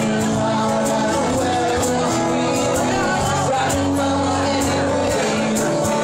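A live band plays with two acoustic guitars and a drum kit keeping a steady beat, while a man sings at the microphone.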